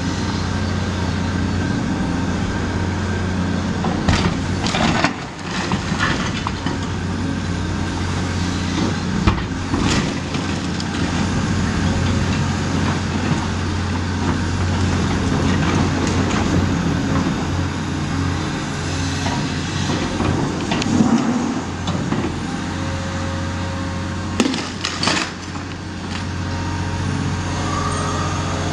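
Caterpillar 336E hydraulic excavator's diesel engine running steadily while its sorting grab tears at a brick wall. Brick and masonry crash and knock down in several bursts, around four, nine and twenty-four seconds in.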